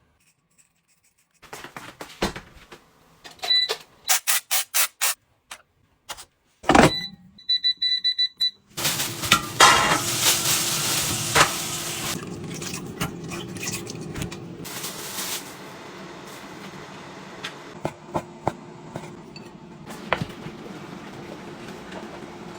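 Kitchen work: clicks and knocks, then a kitchen appliance beeping at button presses, once and then several quick beeps in a row. The appliance then starts running with a steady hum and hiss, loud at first and settling a few seconds later.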